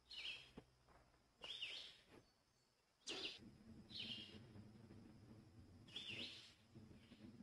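Faint short bird calls, five chirps spread irregularly, with a faint low rumble underneath from about three seconds in.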